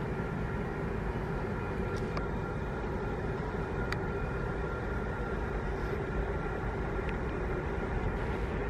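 Steady outdoor background rumble at a railway platform, with faint steady hum tones and a couple of faint clicks; it neither rises nor falls.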